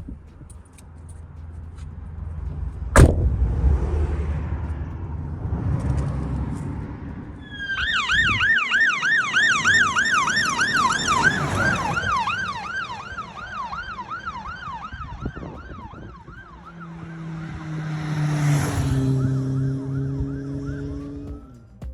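An emergency vehicle siren on a fast up-and-down yelp, running for about eight seconds from near the middle, over low road rumble. A sharp click comes a few seconds in.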